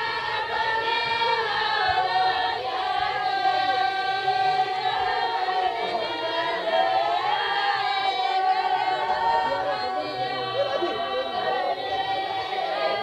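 A group of women singing a traditional Rajasthani mayra (badhavna) wedding song together in unison, unaccompanied, one long, wavering melodic line.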